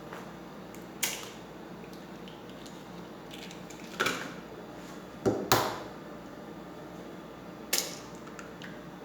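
Eggs being knocked against a hard edge to crack them: a few short, sharp taps, one about a second in, one around four seconds in, a quick pair soon after, and one more near the end.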